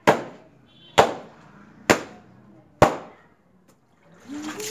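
Wet, soapy towel slammed down on a concrete floor in hand laundry beating, four sharp slaps about a second apart; near the end the towel is scrubbed by hand against the floor.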